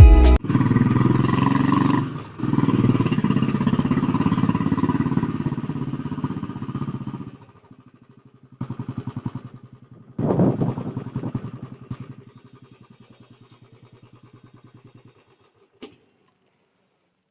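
Motorcycle engine running steadily, then falling away about seven seconds in, followed by two short bursts of throttle and a low idle that stops about fifteen seconds in. A single click comes just after.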